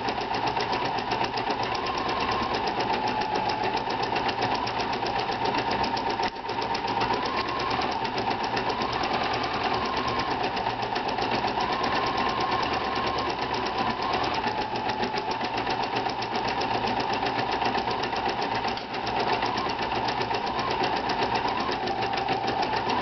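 Pfaff 2170 sewing and embroidery machine stitching out an embroidery design: a rapid, even run of needle strokes over the motor's wavering whine. It falters briefly twice, about six and nineteen seconds in.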